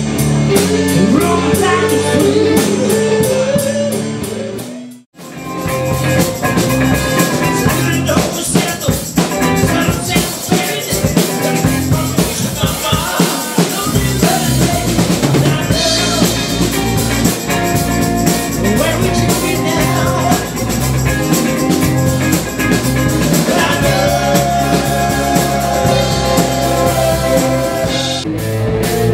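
Live rock band playing: drum kit, electric guitar and sung vocals. The music drops out for a moment about five seconds in, then picks up again.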